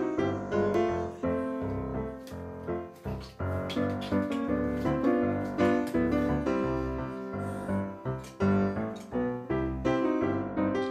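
Background instrumental music led by a keyboard, with notes struck in a steady rhythm.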